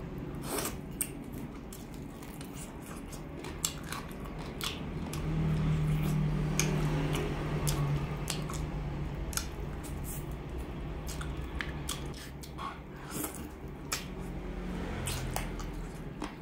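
Close-up mouth sounds of eating boiled chicken with the hands: wet chewing and biting with scattered small clicks and lip smacks. A low steady hum comes in about five seconds in and lasts a few seconds.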